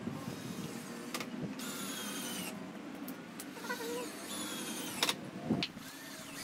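Cordless drill driving screws into wooden slats: short spells of high motor whine, about a second and a half in, again around four seconds, and once more at the end.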